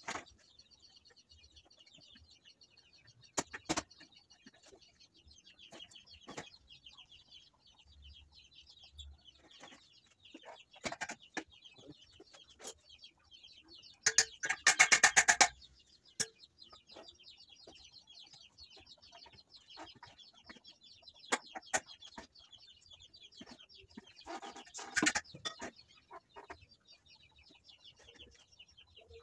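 Chickens clucking, over a steady high-pitched chirring in the background. About halfway through comes a loud, rapid rattling burst lasting about a second and a half, with another burst of calls near the end.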